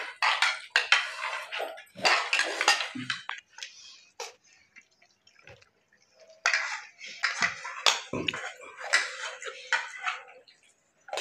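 Cutlery clinking and scraping against plates and serving bowls in quick irregular strokes, as food is served or eaten. The clatter pauses for about two seconds midway, then resumes.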